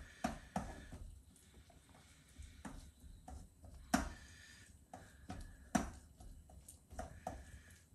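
Silicone spatula stirring chopped chocolate in a stainless steel bowl over a saucepan (bain-marie): irregular soft scrapes and taps of the spatula against the steel, with the sharpest knocks about four and six seconds in.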